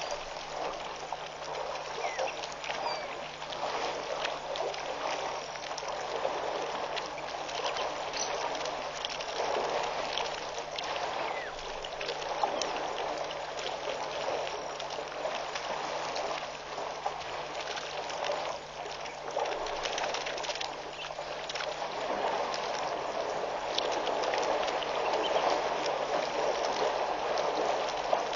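African elephants drinking and wading at a waterhole: continuous sloshing, trickling and splashing water with small crackles throughout, over a steady low hum.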